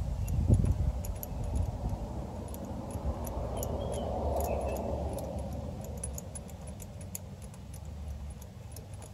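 A socket ratchet clicking and rattling as it unscrews a spark plug from the cylinder head of a 1981 Yamaha XV750 Virago: a run of short, irregular metallic clicks over a low rumble.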